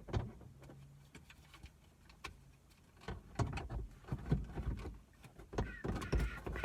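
Plastic dome light housing of a 2005–09 Ford Mustang being handled and pushed back into the headliner: a run of irregular clicks and knocks, with a thump at the start and busier knocking near the end.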